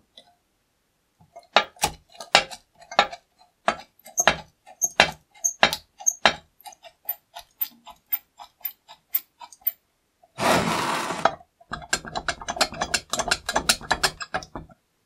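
Rusty metal fittings of a 1930s charcoal iron clicking and rattling as they are worked by hand, the loose handle grip turning on its rivet. There is a run of separate clicks about three a second that fade, a one-second scrape about ten seconds in, then a quick rattle of clicks. The parts click because they are worn and have play.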